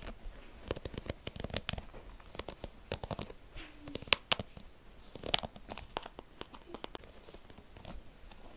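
Fingertips scratching and plucking the metal pins of a paddle hairbrush close to the microphone. An irregular run of sharp clicks and scratches, with a few louder snaps.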